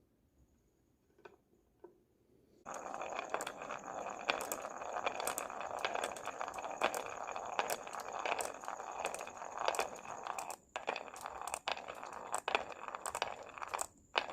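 Glass marbles rolling and clattering down a wooden wave-shaped marble run: after two faint clicks, about three seconds in a dense rolling rumble starts, dotted with many sharp clicks as the marbles strike the track and each other, with a steady high ringing over it.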